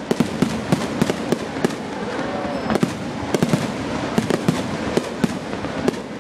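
Fireworks display: a rapid, irregular string of sharp bangs from bursting fireworks, several a second, over a constant background din.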